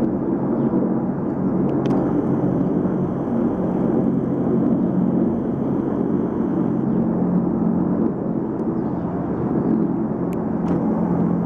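A group of military helicopters flying over: a steady low rotor and engine drone. A faint high turbine whine sits on top from about two seconds in until about seven seconds in.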